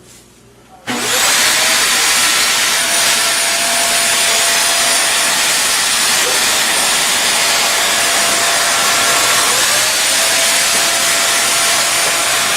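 Hoover WindTunnel Air bagless upright vacuum (UH70400) switching on about a second in and running loud and steady while vacuuming carpet, with a whine that climbs as the motor spins up and climbs again near the end.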